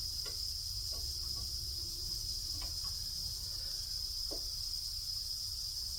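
A steady high-pitched whine over a low hum, with a few faint clicks.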